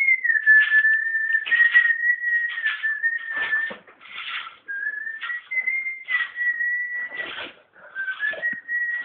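A person whistling long held notes at a high pitch that steps a little up and down, with brief gaps and short breathy bursts of noise along the way.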